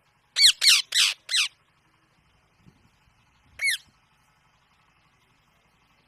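Pet Indian ringneck parakeet squawking: four loud, harsh calls in quick succession, then a single call about two seconds later.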